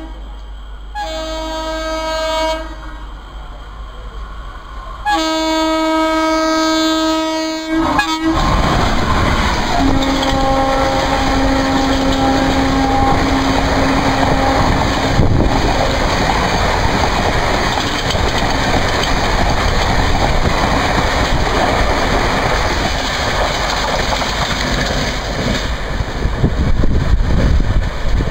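Horn of a WAP-4 electric locomotive hauling the Padmavati Express. It gives a short blast and then a long blast as the train approaches. About eight seconds in, the train arrives with a sudden loud rush of wheels and coaches passing at speed, and the horn sounds again over it at a lower pitch for several seconds. The coaches keep rattling past at speed to the end.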